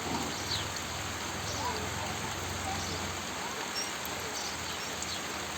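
Steady rain falling, with a few short high bird chirps.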